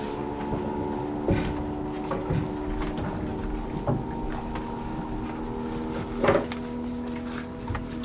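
Motor of a river passenger canoe running at a steady pitch, with a few scattered knocks, the loudest about six seconds in.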